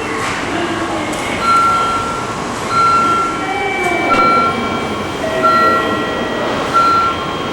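Train running through the station, with a repeated single-pitch electronic beep sounding five times, about every 1.3 seconds.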